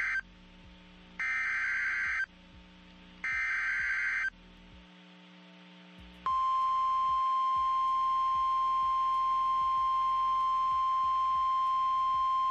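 Emergency weather-alert tones for a National Weather Service severe thunderstorm warning. The end of one burst of buzzing data-header tones is followed by two more bursts about a second apart, then a steady, single-pitched alert tone starts about halfway through and holds.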